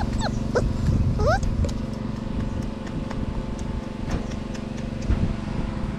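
Steady hum of an engine-driven water pump moving water out of a fish pond, with a few short, high whimpers from a puppy in the first second or so.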